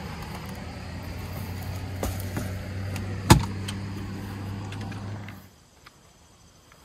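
Car engine idling with a steady low hum, broken by a couple of knocks, the loudest about three seconds in; the hum stops abruptly about five and a half seconds in.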